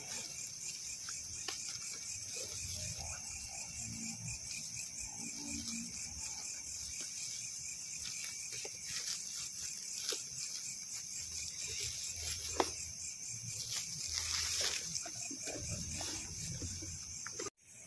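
Night-time chorus of crickets and other insects: a steady, high, finely pulsing trill. A few faint clicks from handling are mixed in.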